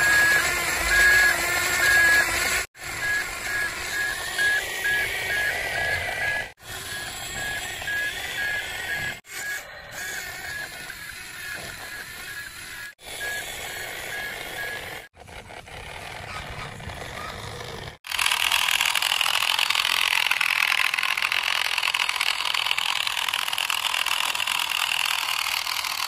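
Toy construction vehicles at work: a short high electronic beep repeats about twice a second over their motor noise, then about two-thirds of the way in a louder, steady whirr of a small electric toy motor and its plastic gears takes over.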